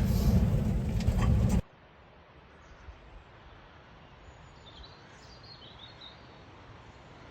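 Strong wind buffeting the microphone, cut off abruptly about a second and a half in. Then a quiet outdoor background, with a small bird chirping faintly a few times around the middle.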